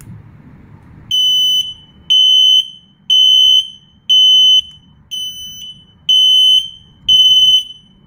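SR-820 combined smoke and heat alarm sounding after a press on its wireless remote: a loud, high-pitched beep about half a second long, repeating about once a second, starting about a second in.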